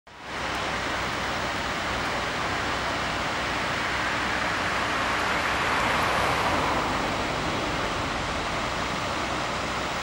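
Steady rushing noise of firefighting at a burning boat: fire hose jets spraying onto the hull, with fire appliance engines and pumps humming underneath. It swells slightly about six seconds in.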